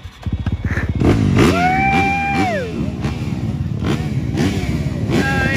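Motocross dirt bike engines revving hard, the pitch climbing again and again as they pull up through the gears. Twice the engine holds a high steady whine and then falls off. The sound cuts in abruptly just after the start.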